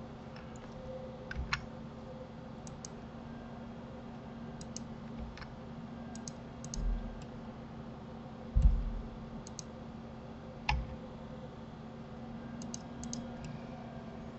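Scattered computer mouse and keyboard clicks, often in quick pairs, with a few soft thumps, over a steady low hum.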